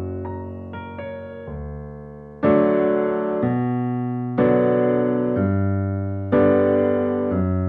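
Background piano music: a few soft notes, then loud, slowly decaying chords struck about every two seconds.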